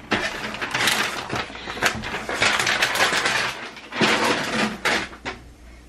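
Plastic rustling and clicking as the pink hard-plastic LOL Surprise Bigger Surprise capsule and its wrapping are handled, with several sharp knocks; it quietens near the end.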